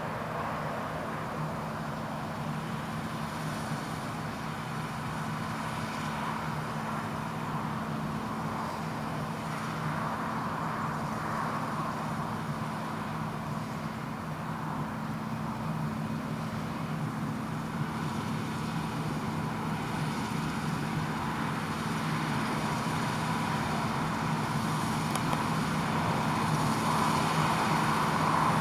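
John Deere T560 Hill Master combine harvester running while cutting winter barley: a steady low engine hum under an even rushing machine noise, growing gradually louder toward the end.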